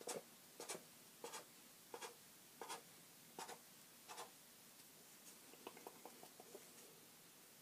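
Faint handling noise from a small plastic toy being moved in the hands: short scratchy rubs about every 0.7 seconds for the first four seconds, then a few softer clicks.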